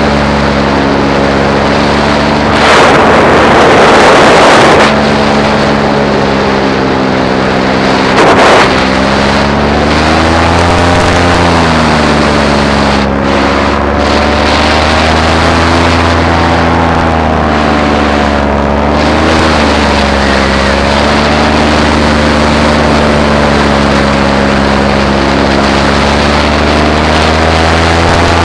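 Paramotor engine and propeller running steadily in flight, the pitch drifting a little up and down. Wind buffets the microphone for about two seconds starting about three seconds in, and briefly again around eight seconds in.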